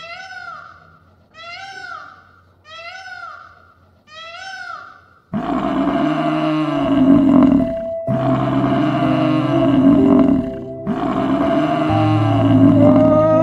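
About five short calls with a rising-and-falling pitch, roughly a second and a half apart, typical of an Indian peafowl. About five seconds in, a much louder stretch of deep, drawn-out animal bellows from a herd of African buffalo begins, over steady music-like tones.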